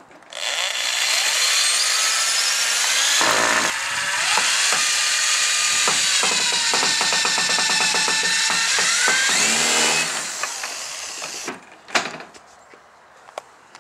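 Electric drill with a screwdriver bit driving screws through a plastic cat flap frame into a garage door, the motor whining up and down in pitch as the trigger is squeezed and eased. A fast rattle runs through the second half, and the drill stops about eleven and a half seconds in, followed by a couple of sharp clicks.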